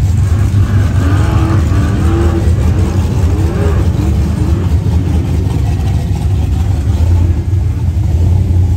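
Off-road racing buggy engine revving hard under load as it climbs a rocky hill, with a loud, steady low drone. The pitch rises and falls repeatedly in the first few seconds.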